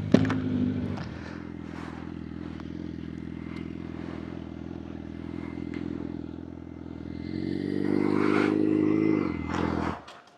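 Sport-bike inline-four engine idling steadily, swelling briefly in a light rev near the end, then cut off about a second before the end; the rider says the bike is getting hot.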